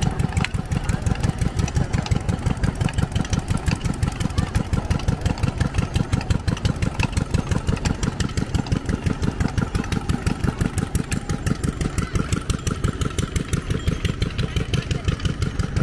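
Small engine driving a carousel ride, running steadily with a fast, even pulse.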